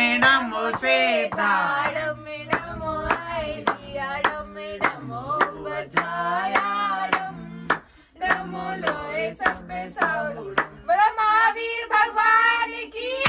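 Singing with a steady beat of sharp knocks or claps, about two a second, and a brief break a little past the middle.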